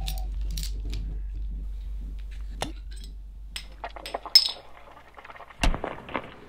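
Cutlery clinking on a china plate and a glass beer bottle clinking: a scatter of sharp clinks, the loudest about four and a half seconds in, and a heavier knock near the end. A low drone fades out under them about halfway through.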